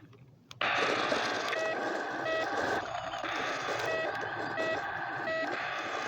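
Toy RC truck's electronic sound module playing a recorded engine noise through its small speaker. The sound cuts in suddenly about half a second in, with a short beep repeating about every 0.7 s like a truck's reversing alarm.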